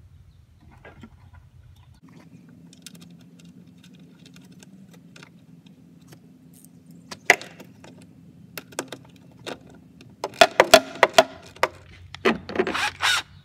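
Metal hand tools clicking and clinking against bolts and mounting hardware while a rubber clamp mount is tightened down. The clicks are scattered at first, then come as a quick run of loud clicks about ten seconds in, with more clinking and scraping near the end.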